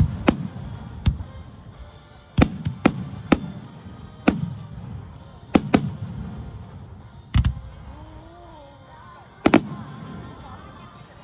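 Aerial fireworks bursting overhead: about a dozen sharp bangs, some in quick doubles, each followed by a low rolling echo. The bursts thin out toward the end, with music playing faintly underneath.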